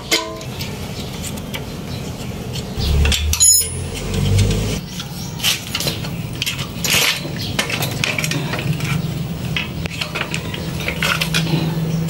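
Metal tools and engine parts clinking and knocking against the casing of a small gasoline water-pump engine while it is taken apart by hand, with scattered sharp clinks and a brief low rumble about three seconds in.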